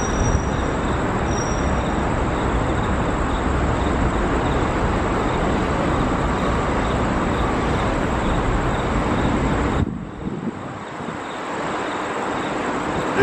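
A steady, loud noise of passing rail or road traffic cuts off suddenly about ten seconds in. Then the sound of an approaching CRH1A high-speed electric multiple unit builds up steadily.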